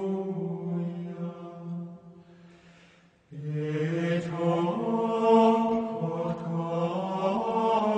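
Latin plainchant sung by men's voices, slow held notes. A phrase dies away about two seconds in. After a brief near-silent pause a new phrase begins, its notes moving up and down in small steps.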